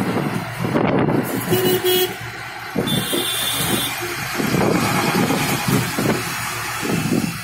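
Road traffic heard from inside a moving vehicle: fluctuating engine and road noise, with two short horn toots about a second and a half in and a higher-pitched beep around three seconds in.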